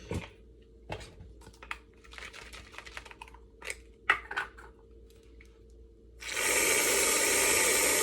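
Small clicks, taps and rustles of kitchen items being handled. About six seconds in comes a loud steady hiss like a spray, lasting a couple of seconds.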